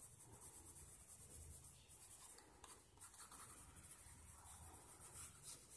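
Faint scratching of a pencil shading on paper in quick back-and-forth strokes, darkening a drawn area.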